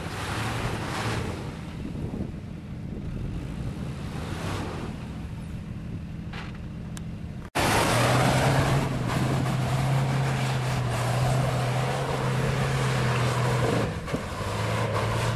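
Off-road 4x4 vehicle engine running steadily as it climbs a dirt track, with wind noise on the microphone. About halfway through the sound cuts abruptly to a louder, steadier engine drone.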